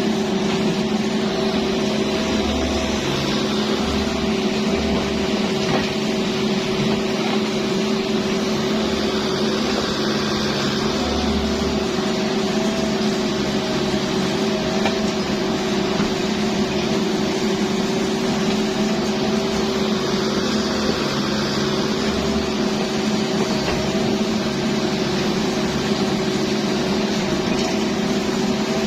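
Kubota excavator's diesel engine running steadily at an even pitch.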